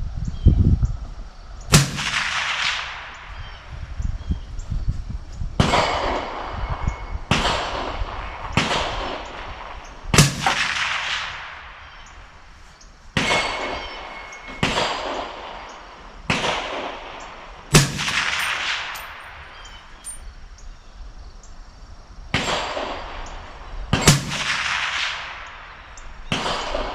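Ruger SFAR .308 semi-automatic rifle firing a string of about a dozen shots, one to four seconds apart. Each crack is followed by a long rolling echo that fades before the next shot.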